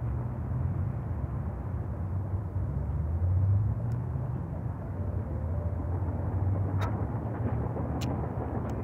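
Wind buffeting the phone's microphone: an uneven low rumble that swells and eases in gusts, with a couple of faint clicks near the end.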